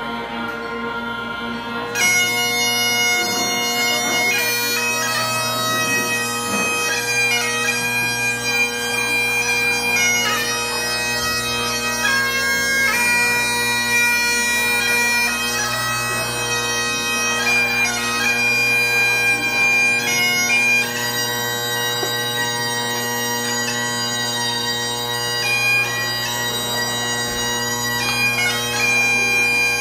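Several Great Highland bagpipes playing together: the drones sound steadily from the start, and the chanters come in with a tune about two seconds in.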